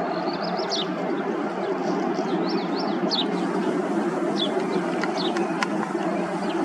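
Small birds chirping repeatedly in short falling notes over a steady rumbling noise, with a couple of sharp clicks near the end.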